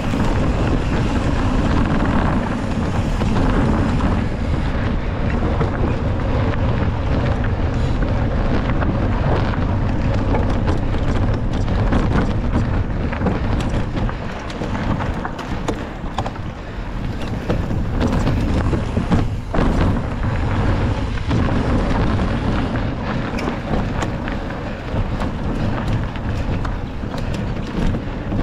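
Heavy wind buffeting a rider-mounted microphone on a mountain bike at race speed, with scattered knocks and rattles from the bike over rough trail.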